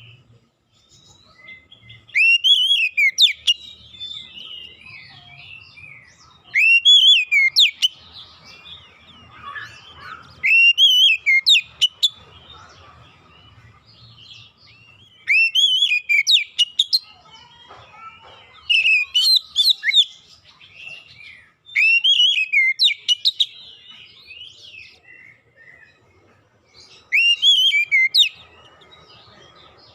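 Oriental magpie-robin singing: loud phrases of rising and falling whistles come about every four seconds, seven in all, with quieter twittering notes between them.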